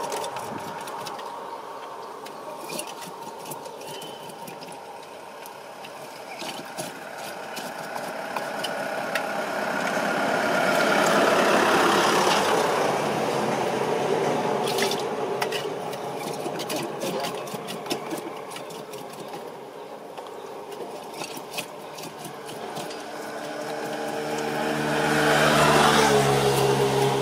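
Street traffic: motor vehicles passing, their engine noise swelling about halfway through and again near the end. Scattered sharp clicks sound over it.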